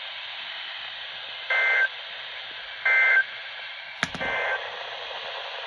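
Three short bursts of SAME digital data, the EAS end-of-message tones that close a weather radio alert, about a second and a half apart over steady radio hiss; the third is weaker and starts with a sharp click.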